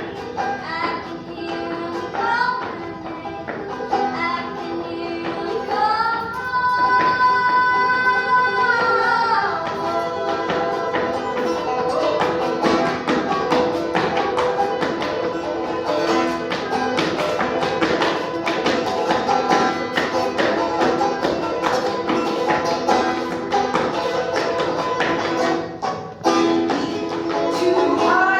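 Clawhammer banjo picking, with a long held sung note about a quarter of the way in. From about the middle on it is joined by quick percussive dance steps tapping on a wooden dance board.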